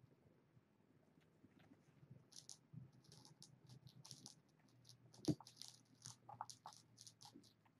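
Faint light scratching and pattering of kittens playing, paws and claws on a cardboard scratcher and toys, coming in quick scattered ticks from about two seconds in, with one sharper knock a little after five seconds.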